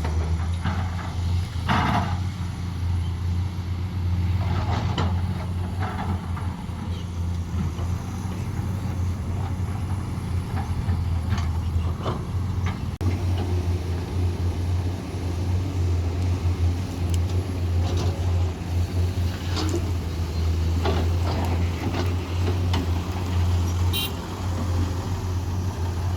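Heavy diesel engines of an excavator loading a dump truck, running with a steady low drone. Scattered clanks and knocks are heard, along with a brief high-pitched squeal near the end.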